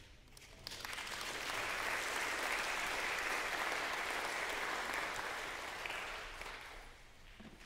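Congregation applauding as the orchestra finishes a piece. The clapping starts about a second in, swells, then dies away near the end.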